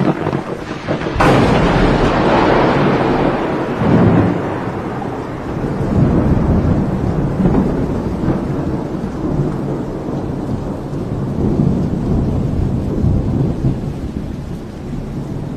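Thunderstorm sound effect: a sharp thunderclap about a second in, then long rolling rumbles of thunder over rain.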